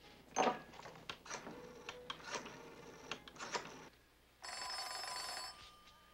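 A series of irregular knocks and clicks, the first the loudest. Then an old black rotary-dial desk telephone's bell rings once, for about a second.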